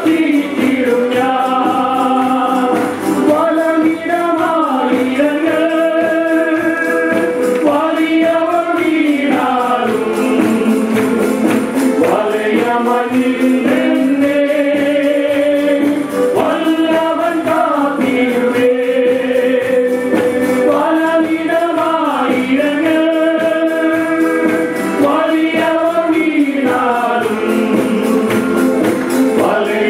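Malayalam worship song: a group of singers on microphones singing together over band accompaniment with a steady beat.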